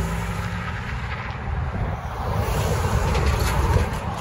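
Cars and a pickup towing a utility trailer driving one after another across a railroad grade crossing, with wind rumbling on the microphone.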